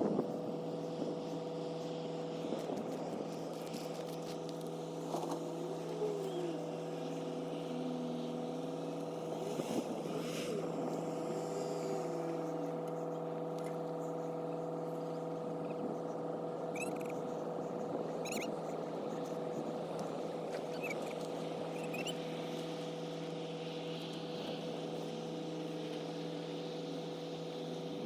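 GMC AT4's 3.0-litre Duramax inline-six diesel running at a steady engine speed while the truck drives off-road, with an even drone.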